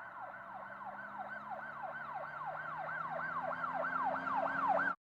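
Emergency-vehicle siren in a fast yelp, its pitch rising and falling about three times a second and growing louder, then cutting off suddenly near the end.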